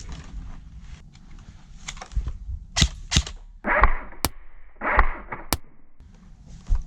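Airsoft guns firing on the field: a few sharp cracks and two short bursts of fire in the middle stretch, spread over about three seconds.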